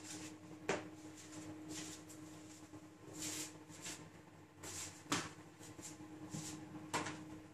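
A few light knocks and shuffles as a tennis ball is kicked about on a tiled floor, over a faint steady hum.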